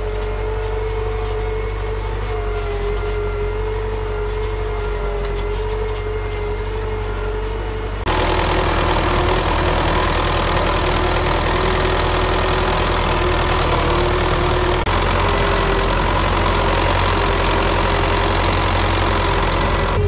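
Belarus MTZ-82 tractor's four-cylinder diesel engine running steadily under load, pulling a three-furrow plough through the soil. About eight seconds in, the sound cuts to a louder, noisier take of the same engine.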